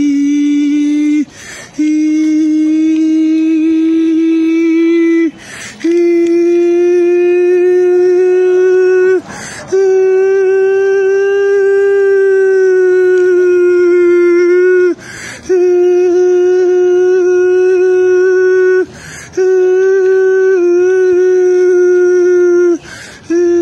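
A man's voice holding one long, steady, high-pitched note, over and over, broken by a short breath about every four seconds.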